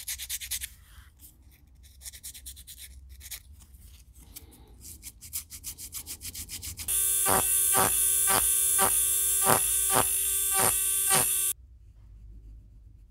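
A fingertip rubbing thinned drywall spackle over the primed resin lure body with light, scratchy strokes. About seven seconds in, a much louder steady pitched tone with a regular beat of two to three strikes a second starts, runs for about four seconds, and cuts off suddenly.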